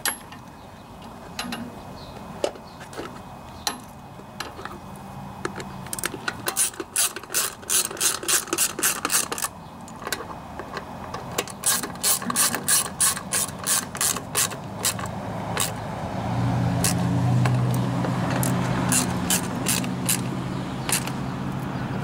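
Socket ratchet clicking in quick runs, about four clicks a second, as the air cleaner cover screws are tightened. A low steady hum builds in the background in the second half.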